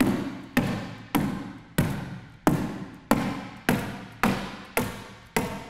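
Hammer tacker driving staples through 15-pound roofing felt into plywood: about ten sharp strikes in an even rhythm, a little under two a second, each dying away quickly.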